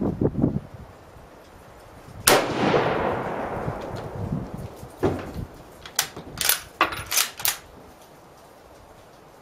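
A 1941 Mosin-Nagant bolt-action rifle fires one 7.62x54R round about two seconds in: a sharp crack with an echo that dies away over about two seconds. From about five seconds in come several short metallic clicks and clacks as the bolt is worked to eject the spent case and chamber the next round.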